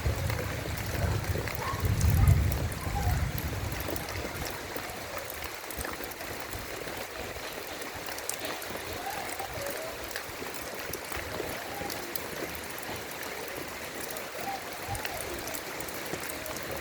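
Heavy rain pouring steadily. A low rumble runs through the first few seconds and is loudest about two seconds in. Faint short chirps come now and then.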